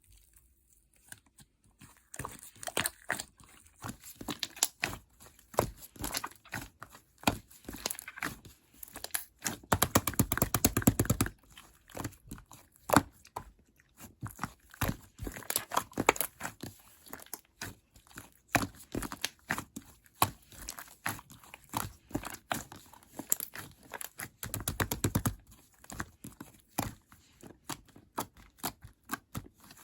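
Slime being kneaded and pressed by hand, giving sticky pops and crackles, with two bursts of rapid popping about ten seconds in and near the end.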